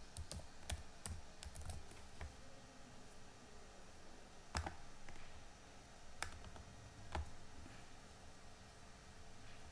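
Computer keyboard typing: a quick run of faint keystrokes in the first two seconds. Then a few single clicks a second or so apart.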